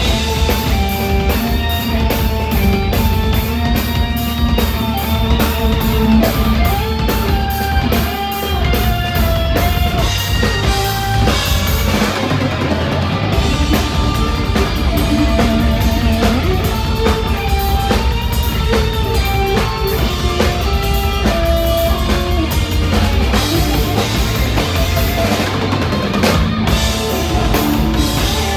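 Live heavy metal band playing an instrumental passage: distorted electric guitars trading melodic lead lines over a pounding drum kit and bass, loud and continuous.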